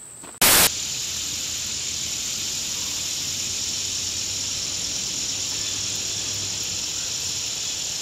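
Steady, high-pitched chorus of insects, an even hiss-like drone. It starts just after a short, loud burst of noise about half a second in.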